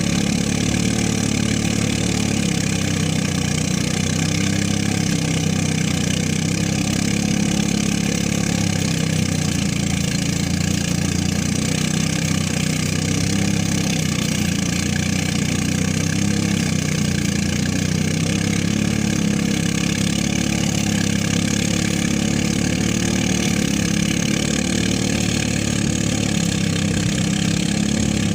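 Engine-driven rice threshing machine running steadily, with a slight waver in its pitch.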